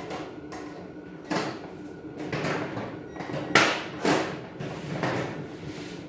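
Steel panels of a Kobalt cabinet knocking and scraping as they are handled and fitted together: a few sharp clanks, the loudest about three and a half seconds in, with sliding scrapes between.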